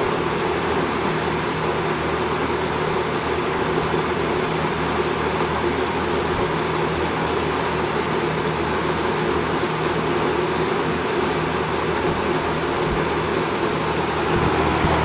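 1970s Westinghouse 20-inch box fan (model AW12-1) running steadily: an even rush of air from the blades over a low electric motor hum, the motor freshly cleaned and oiled.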